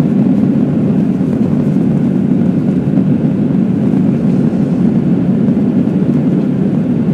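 Jet airliner's engines and rushing air heard inside the passenger cabin during the climb after takeoff: a steady, low rumble that holds an even level throughout.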